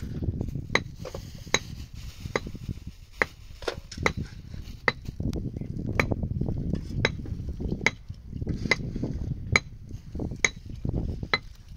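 Hand mixing in a metal bowl: a sharp ringing metallic clink a little more than once a second over a steady dull rustling and pressing.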